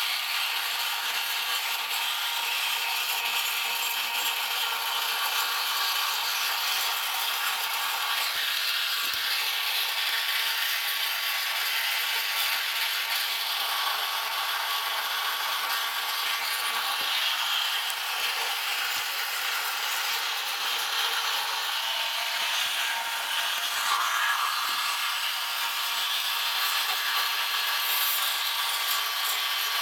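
A hand-held air tool grinding rust off the corroded steel body panel of a kei truck: a steady, unbroken abrasive grind.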